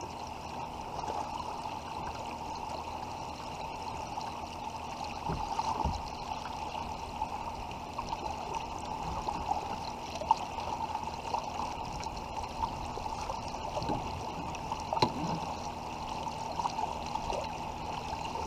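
Steady rush and trickle of fast river current, with a few brief, sharper knocks, the loudest about ten and fifteen seconds in.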